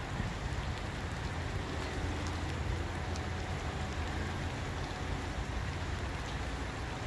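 Steady hiss of light rain falling, over a constant low rumble.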